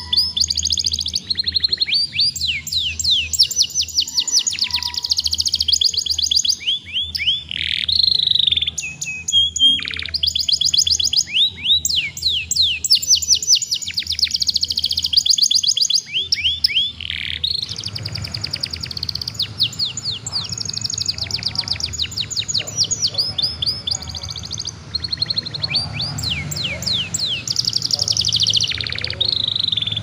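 Juvenile domestic canary singing continuously: long, rapid trills of quick downward-sweeping high notes, broken by short pauses, over a steady low background hum. This is full, sustained young-canary song of the kind used to prompt other young canaries to start singing.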